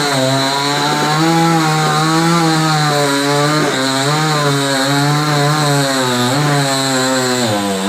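Chainsaw running under load, cutting into a coconut palm trunk, its engine pitch wavering up and down as the chain bites.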